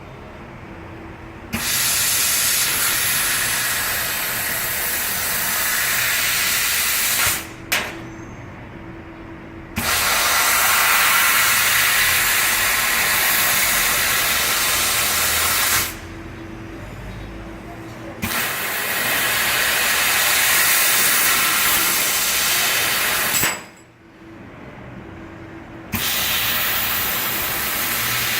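Assist gas hissing from a 150 W laser cutting machine as it cuts metal, switching on and off abruptly in four long bursts, with a quieter machine hum in the gaps.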